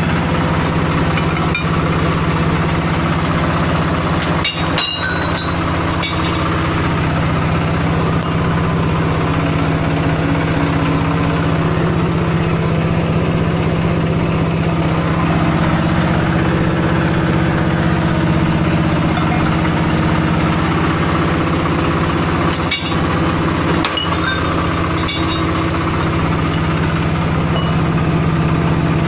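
Motor-driven steel bar bending machine running steadily with a low hum. Sharp metallic clinks come a few seconds in and again about two-thirds of the way through.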